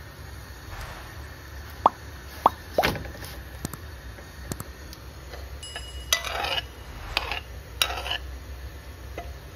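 Thick paneer curry in a pan gives three sharp plops about two to three seconds in. Later, dry crinkling rustles come from lavash flatbread being handled, over a low steady hum.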